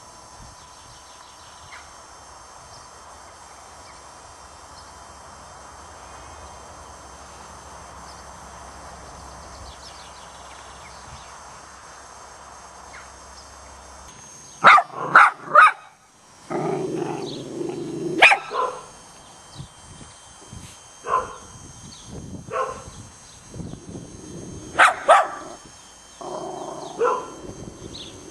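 Steady hiss of spraying water for the first half, then a small white-and-brown dog barking loudly: short sharp barks, several in quick runs and others singly.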